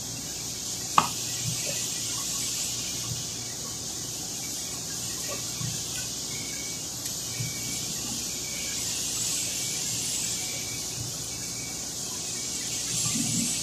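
Light handling of a disassembled electric drill: a sharp click about a second in, then a few soft knocks, over a steady high hiss.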